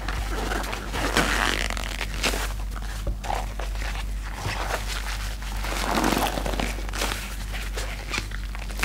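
Wet sponges squeezed and kneaded by rubber-gloved hands in a tub of soapy lather: continuous squelching and crackling of foam, swelling about a second in and again around six seconds in as the sponge is pressed.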